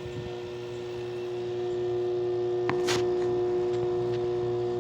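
A 2016 LG 8,000 BTU portable air conditioner hums steadily with its compressor running, while its rear fan is stuck and not turning. The owner suspects either something caught in the fan or a broken fan motor. The hum grows louder about a second or two in, and a short click with a hiss comes about three seconds in.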